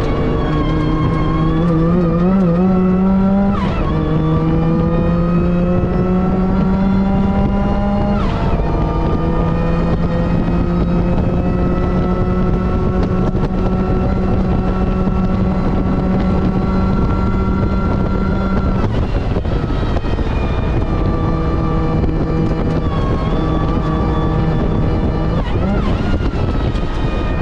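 Car engine at full throttle on a race track, climbing in pitch through the gears with quick upshifts about 4 and 8 seconds in. A long pull in a high gear follows, then the throttle eases about two-thirds of the way through and opens again, with another shift near the end.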